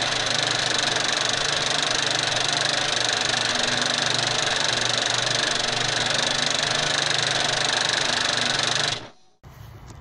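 A steady, dense mechanical rattle with hiss, used as an intro sound effect, that cuts off sharply about nine seconds in.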